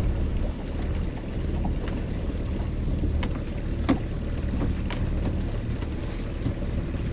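Creel rope hand-hauled over the side of a small open boat, with a few knocks against the hull, the loudest about four seconds in. Under it runs a steady low rumble.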